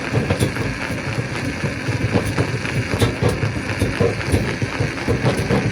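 Stone crusher running, with a steady mechanical din and an irregular clatter of rocks knocking and grinding through it.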